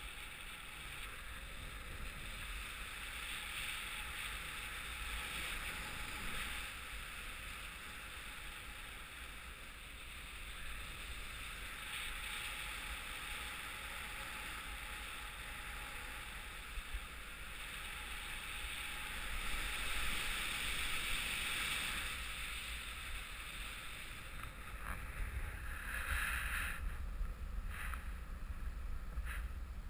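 Wind rushing over the microphone of a camera carried by a paraglider pilot in flight: a steady low rumble with a hiss that swells and fades, with a brief louder rush near the end.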